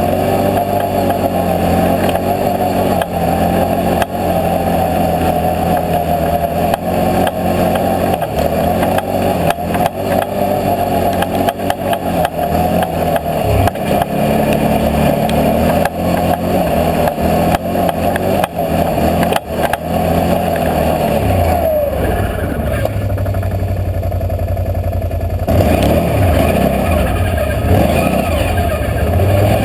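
Can-Am Outlander 650 XMR ATV's V-twin engine running under way, its pitch rising and falling with the throttle, with occasional sharp knocks. About three quarters of the way through, the engine note falls away and drops back for a few seconds, then pulls again.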